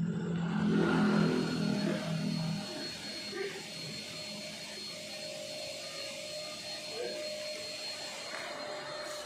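Hydraulic baling press's electric motor and pump running with a steady whine over a hiss; a deeper hum drops away about two and a half seconds in.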